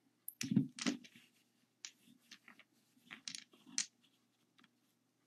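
Small glass nail-polish bottles clinking and knocking against one another as they are set down and pushed into rows, a cluster of louder knocks about half a second in, then scattered light clicks.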